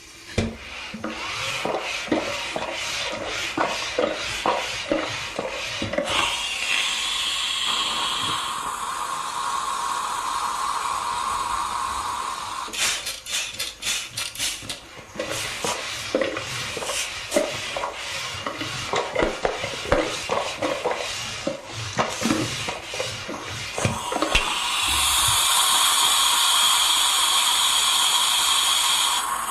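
Steam iron in use: repeated knocks and scraping as the iron is moved and set down on the board, with two long hissing bursts of steam, one starting about six seconds in and lasting around six seconds, and a louder one near the end.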